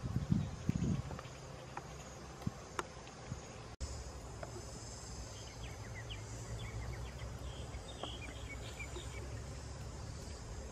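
Steady high chirring of an insect chorus, with low rustling thumps in the first second and scattered light ticks in the middle.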